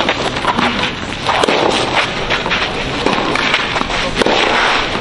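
Tennis rally on a clay court: a ball struck back and forth by racquets, making several sharp pops about a second apart over steady background noise.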